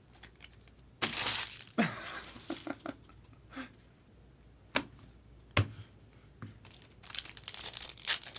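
A trading-card pack's foil wrapper torn open with a sudden tearing rip about a second in. Two sharp clicks follow, then more crinkling of the wrapper near the end.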